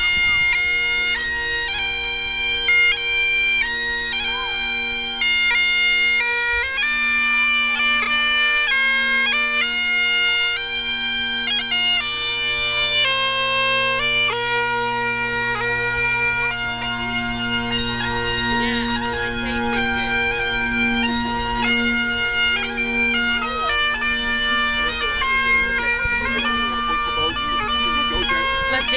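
Highland bagpipes playing a tune: the chanter's melody stepping from note to note over the steady drones.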